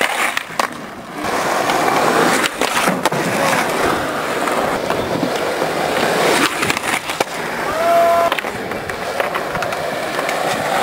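Skateboard wheels rolling on rough concrete with a steady gritty rumble, broken several times by sharp clacks of the board against the ground and ledge.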